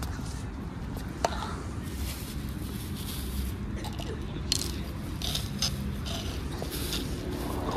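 Cats chewing dry kibble: short, crackly crunches scattered irregularly, more of them in the second half, with a sharp click about a second in, over a steady low background rumble.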